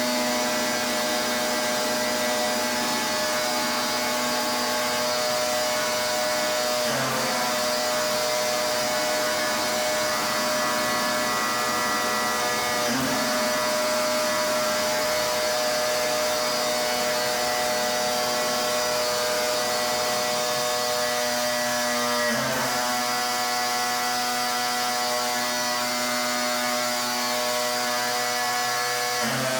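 Pressure washer running steadily, its motor droning under a broad hiss of spray, with a brief dip in pitch four times.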